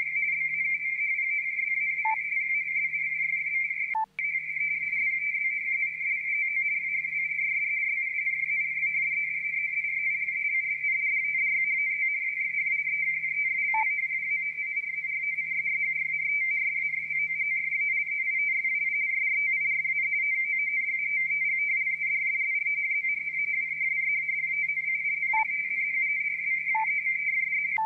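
A radio teletype (RTTY) data signal heard through a Yaesu FTdx10 shortwave receiver near 9224 kHz. It is a steady two-tone frequency-shift warble at one fixed pitch and cuts out for an instant about four seconds in. The radio's decoder prints only garbage from it, and the listener thinks the signal is probably encrypted.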